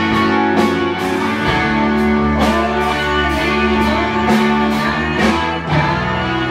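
Live rock band playing loudly: electric guitar and electric bass over a drum kit, with regular drum and cymbal hits.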